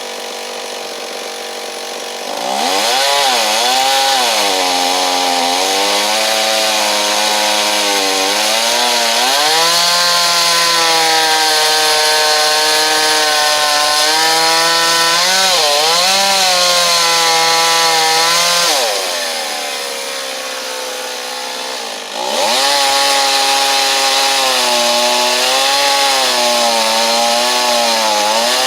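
Stihl 026 two-stroke chainsaw running slow, then revving up about two and a half seconds in and cutting through Osage orange (bois d'arc) hardwood, its pitch sagging and recovering under load. It drops back to a lower level around nineteen seconds in and goes back into the cut about three seconds later.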